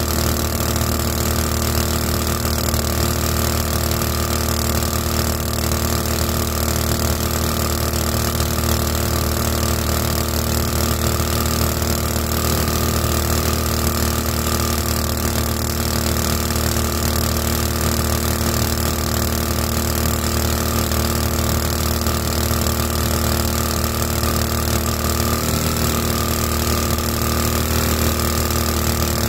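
Small 224 cc boat motor driving a 7-inch two-blade prop, running steadily under way with an even engine note.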